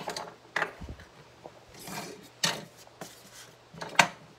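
Small toy pieces handled and set down on a hardwood floor: a few sharp clicks and knocks, the loudest near the end, with a short rub or scrape in between.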